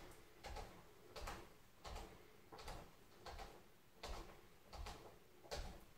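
Soft, even thuds of bare feet set down on a wooden floor, about three every two seconds, as legs are raised and lowered in turn.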